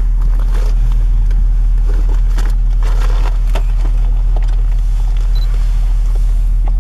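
Idling engine of a stopped park bus, a steady low hum heard from inside the cabin, with occasional small clicks and rustles.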